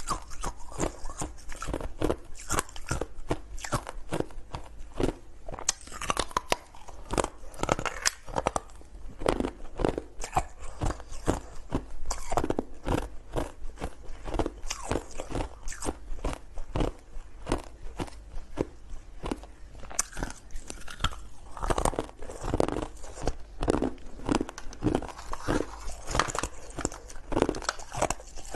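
Thin slabs of hard colored ice being bitten and chewed: a long run of sharp, irregular crunches, several a second, with brief lulls between bites.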